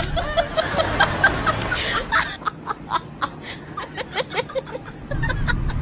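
Snickering laughter in quick short bursts, louder in the first couple of seconds and fainter after that.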